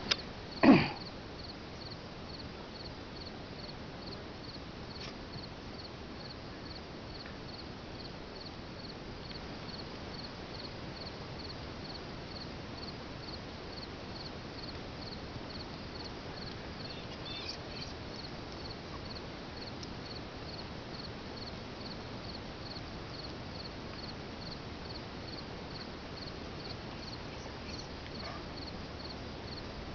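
Insects chirping steadily in a high, regular pulse about twice a second. Beneath it are faint hoofsteps of a horse walking, and there is one short loud sound just under a second in.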